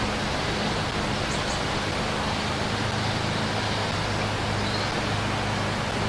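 Steady, even hiss with a faint low hum underneath, unchanging throughout, with no distinct knocks or other events.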